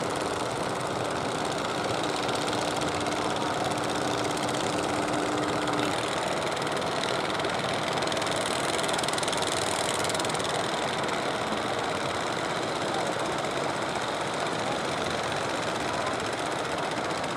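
Fishing boat engine running steadily, a continuous mechanical drone with no break.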